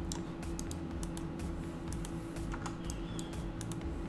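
Computer keyboard keys and mouse buttons clicking irregularly, a dozen or more sharp clicks, against a steady low hum.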